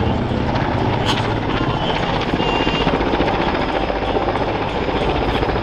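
NH90 tactical transport helicopter flying a display pass, its main rotor chopping in a rapid, steady beat over the whine of its twin Rolls-Royce Turbomeca turbine engines.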